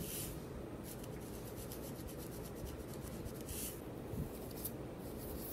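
Fingernails scratching a dandruff-flaked scalp through short hair, scraping the flakes loose: a rapid run of faint rasping strokes, then two separate louder scrapes later on.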